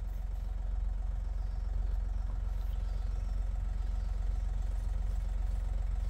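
A vehicle engine idling nearby: a steady low rumble.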